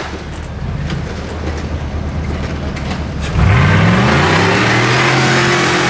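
Rock-racing buggy's engine running low with a few knocks, then about three seconds in revving up sharply and holding at high revs as it climbs.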